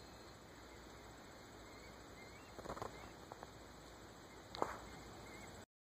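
A few short yips from a small puppy over faint outdoor hiss: a quick cluster a little before halfway, then one sharper, louder yip. The sound cuts off abruptly near the end.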